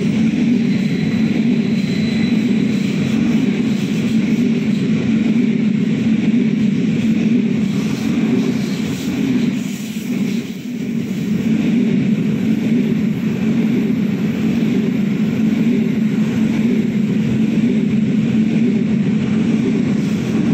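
SBB Giruno (Stadler SMILE) electric multiple unit in double traction passing close by, with a steady rumble of wheels on rails and a faint high whine in the first couple of seconds. The sound dips briefly about halfway through as the gap between the two coupled units goes by.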